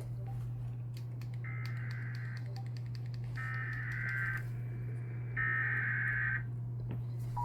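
Emergency Alert System SAME header: three warbling digital data bursts, each about a second long, with scattered clicks and a steady low hum under them. The bursts are the coded header that opens a new alert, and the two-tone attention signal begins right at the end.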